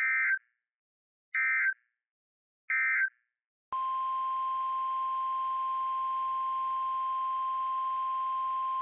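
Three short bursts of EAS/SAME digital data tones: the end-of-message code closing a warning. Then a steady 1050 Hz NOAA Weather Radio warning alarm tone begins over faint radio hiss, signalling that a new warning is about to be read.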